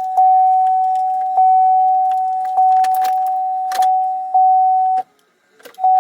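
Cadillac DTS warning chime dinging about once a second, with keys jangling in the ignition as the key is turned; no engine cranking is heard, the car's no-crank, no-start fault. The chime breaks off briefly near the end and then starts again.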